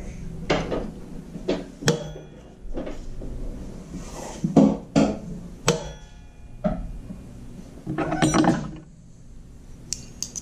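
Irregular knocks and clinks of dishes and utensils being handled on a kitchen table, a dozen or so sharp strikes spread unevenly, with a denser clatter near the end.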